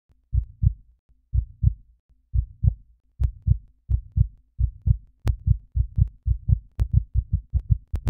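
A heartbeat: paired low lub-dub thumps that speed up from about one beat a second to about two, with three sharp clicks over it.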